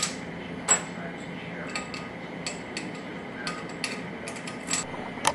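Light metal clinks and taps of steel head bolts and hand tools being handled and set into the cylinder head of a 2001 Yamaha R6 engine: a dozen or so sharp, irregular clicks, the loudest about two-thirds of a second in and near the end, over a steady low hum.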